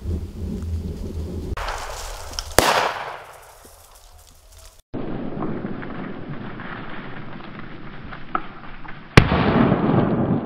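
Two shotgun shots at a flushed woodcock, about six and a half seconds apart, the second the louder, over steady wind noise on the microphone.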